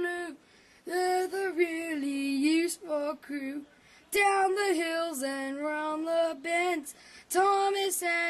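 A high voice singing a tune without accompaniment, in phrases broken by two short pauses.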